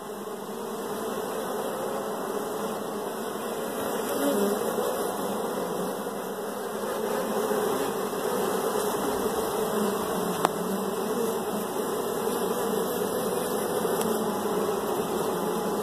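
Many honey bees buzzing around an open hive, a steady, dense hum. A single short tick sounds about ten and a half seconds in.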